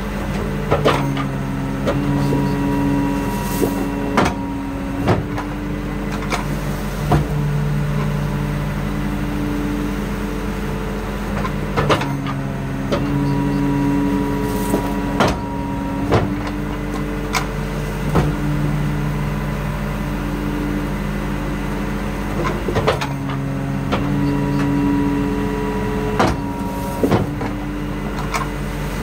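Press-type garbage truck packer running its compaction cycle: the engine and hydraulic pump drone steadily, their pitch shifting as the press plate cycles about every eleven seconds, with sharp clanks and knocks from the plate and the cardboard it crushes.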